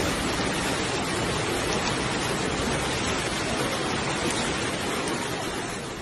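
Heavy hailstorm downpour of hail and rain falling on the street and parked cars: a steady, dense hiss that fades out near the end.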